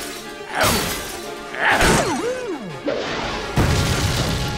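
Cartoon sound effects over background music: a few crashes and smashes of a car collision, a short swooping tone, then an explosion rumbling in about three and a half seconds in.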